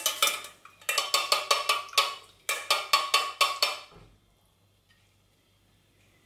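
Metal kitchen tongs clinking and tapping against dishware while broccoli is served, a quick run of about five ringing clicks a second that stops about four seconds in.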